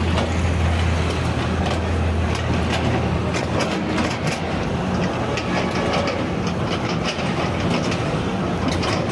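Heavy engine running with rattling and clanking. A deep hum is strong for the first three or four seconds, then drops away.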